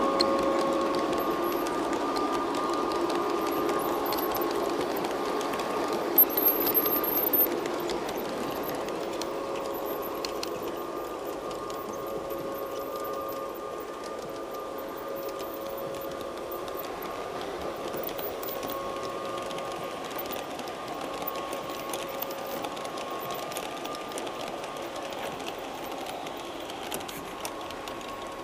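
A garden-scale model Rhaetian Railway train running on its track: a steady whine from its electric motors and gearing, with wheels rolling on the rails. A few sharp clicks come about six to seven seconds in. The sound fades gradually as the train draws away.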